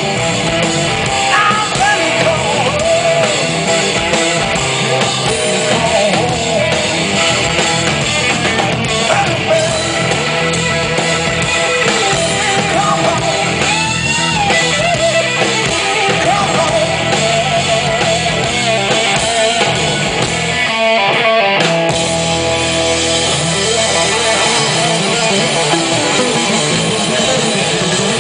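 Live blues-rock band playing loud: electric guitar with bent, wavering notes over a drum kit. The low end drops out briefly about two-thirds of the way through, then the band comes back in.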